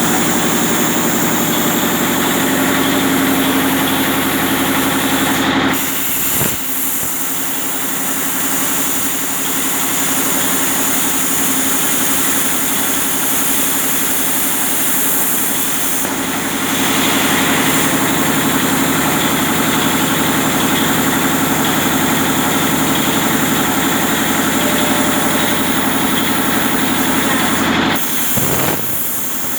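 Plasma cutter cutting holes in steel: a steady, loud hiss of the arc and air over a constant machine hum. It stops briefly about six seconds in and again near the end.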